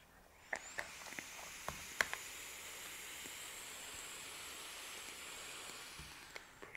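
Vape atomizer firing on a long drag from a box mod: a steady airy hiss of air pulled through the heated coil, with a few sharp pops and crackles in the first two seconds, stopping about six seconds in.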